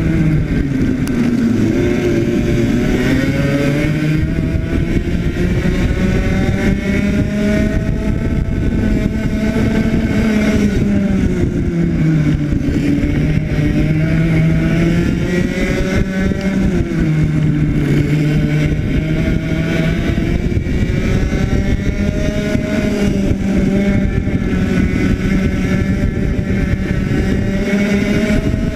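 Two-stroke racing kart engine at full race pace, its pitch climbing on the straights and dropping back as it slows for the corners, over and over, with wind and tyre noise underneath.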